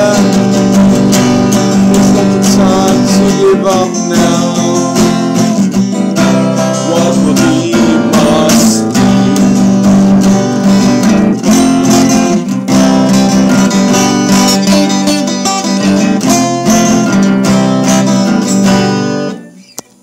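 Acoustic guitar strummed in a steady rhythm, its chords ringing; the playing stops about a second before the end.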